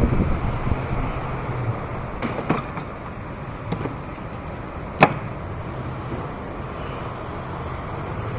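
Steady background rush with a few light clicks, then one sharp click about five seconds in.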